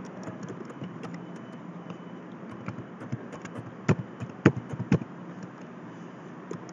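Computer keyboard and mouse clicks over a steady low hum: faint scattered ticks, then three sharp clicks close together about four seconds in as a date is entered in a web form.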